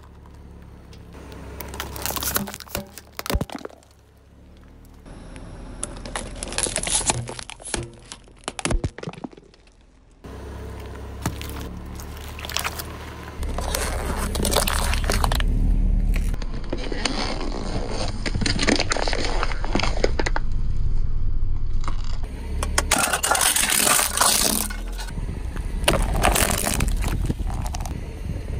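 Car tyre rolling over and crushing small plastic objects, with sharp cracks, crunches and snaps as they give way. A steady low car rumble runs under the crunching from about halfway, and the sound changes abruptly several times.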